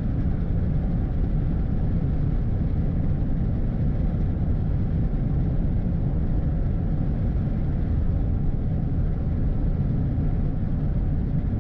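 Steady low rumble of engine and road noise from a vehicle driving at highway speed.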